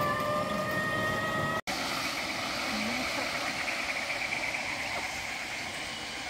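A steady pitched hum with overtones, rising slightly, that is cut off by an edit about a second and a half in. It is followed by a steady, shrill forest insect chorus of crickets or cicadas.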